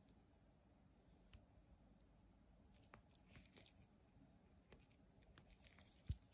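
Faint scattered clicks and clinks of an Omega Seamaster 300M's stainless steel bracelet and case being turned over in the hands, with a soft bump about six seconds in.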